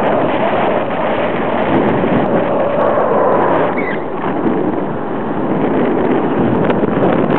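Airflow rushing over the camera microphone of a paraglider in flight: loud, steady wind noise.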